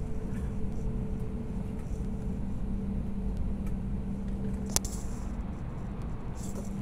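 Airbus A320's jet engines running at low taxi power, heard from inside the cabin: a steady low drone with a constant hum, as the airliner lines up for take-off. A single sharp click about five seconds in.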